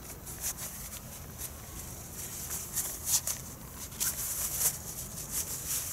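Fabric rustling in irregular bursts as a deflated Snugpak Butterfly self-inflating pillow is rolled up and pushed into its pouch, louder in the second half.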